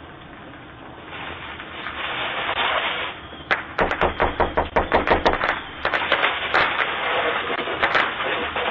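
Rapid pounding knocks on a door, about five a second for around two seconds, then a few single bangs, over a rushing hiss from a doorbell camera's microphone.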